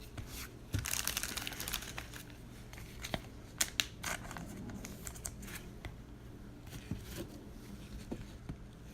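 Plastic trading-card wrapping crinkling as cards are handled, with a dense crinkle about a second in followed by scattered light clicks and snaps of cards being shuffled.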